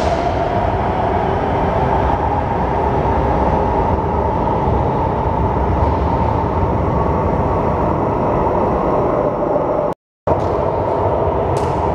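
CAF AS-14 metro train running alongside the platform behind screen doors: a steady rumble with a humming tone. The sound cuts out for a moment near the end, then resumes.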